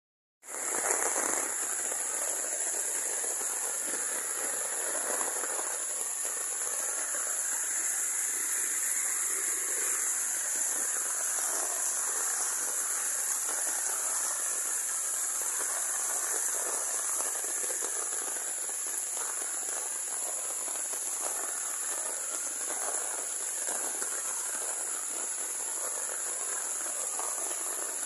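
Heavy rain falling steadily, pattering on an umbrella overhead in a dense hiss of drops, with a steady high-pitched insect chorus above it. No thunder is heard.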